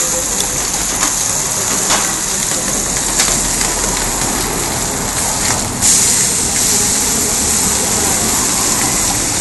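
Ham, bacon, a beef patty and cheese sizzling on a hot flat-top griddle, a steady frying hiss, with a metal spatula clicking and scraping on the steel now and then. The sizzle gets louder about six seconds in.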